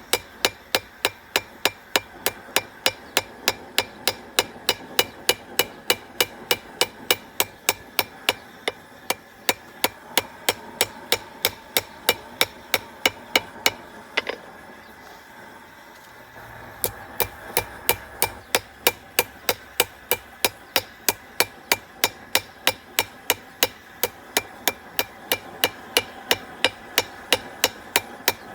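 Blacksmith's hammer striking hot steel on an anvil in a steady rhythm of about three blows a second, flattening and drawing out a knife blade. The blows stop for a couple of seconds about halfway through, then resume at the same pace.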